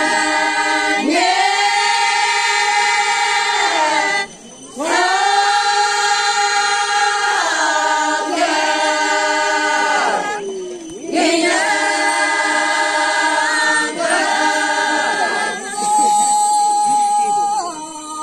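A group of women singing a traditional cultural song together, unaccompanied, in long held notes. The phrases break for breath about four seconds in and again about ten seconds in, and the singing trails off near the end.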